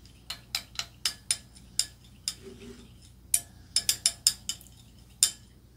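A metal straw stirring a drink in a glass, clinking sharply against the glass about a dozen times in quick irregular runs, with a pause of about a second midway.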